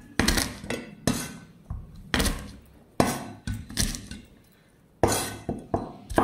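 A Chinese cleaver knocks sharply on garlic cloves against a wooden cutting board as the cloves are smashed flat. The knocks come one at a time about a second apart, then stop for about a second, and come quicker near the end.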